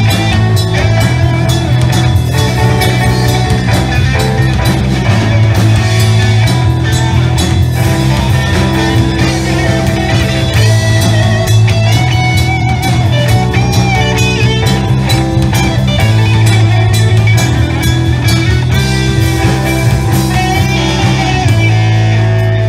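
Live progressive rock band playing loudly, with electric guitar, bass guitar, drum kit and keyboards.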